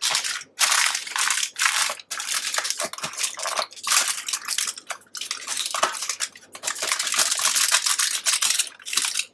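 Aluminium foil crinkling and crackling as hands press and crimp it closed to seal a foil packet, a continuous run of crackles broken by a few short pauses.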